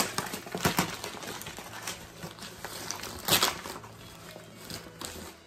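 Plastic parcel mailing bag crinkling as it is handled and opened, with louder rustles at the start, just under a second in and about three seconds in.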